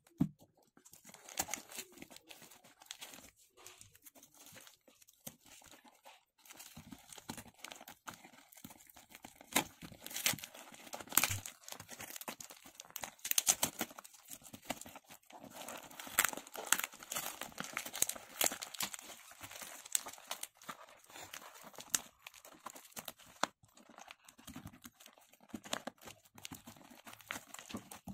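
Hands tearing open a parcel, peeling brown packing tape and ripping cardboard, in irregular bursts of crackling and ripping.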